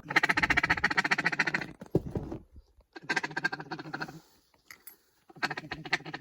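Ducks quacking in three rapid, chattering runs, each a second or two long, with short pauses between.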